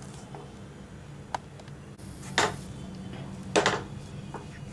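Wooden spatula stirring a thick maida-and-milk dough in a pan, keeping it from sticking to the bottom, with faint knocks at first and several sharp knocks of the spatula against the pan in the second half.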